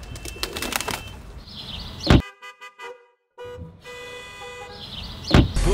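Car horns honking in a traffic jam, a run of short and longer toots, set between two loud whooshes, one before the horns and one after.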